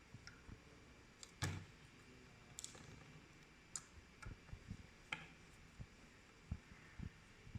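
Sparse light clicks and knocks of small parts and tools being handled, with one louder knock about a second and a half in.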